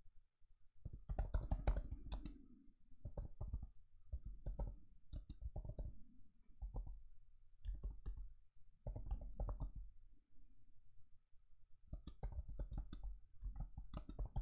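Typing on a computer keyboard: runs of quick keystroke clicks, with a short pause about ten seconds in.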